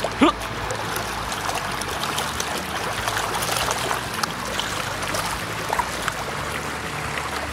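Steady running, trickling water, with scattered small splashes at the pond's edge.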